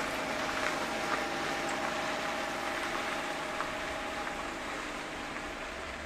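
A small hatchback car driving on a gravel road: its engine running steadily under a continuous crunching hiss from tyres on gravel, easing slightly toward the end.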